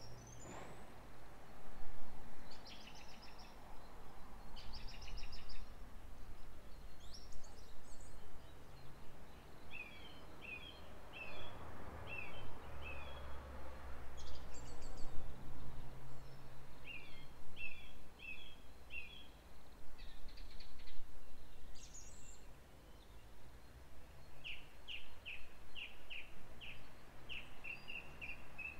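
Songbirds singing in a garden: short repeated chirping phrases and trills from more than one bird, over a faint low rumble.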